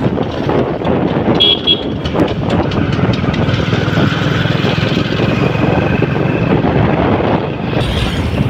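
Wind buffeting the microphone over the engine and road noise of an open vehicle being ridden along a highway. A short high horn toot comes about a second and a half in.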